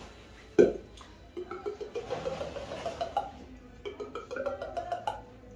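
Mouth imitation of water being poured into a glass: a sharp tongue click, then two runs of rapid hollow tongue clicks that rise in pitch.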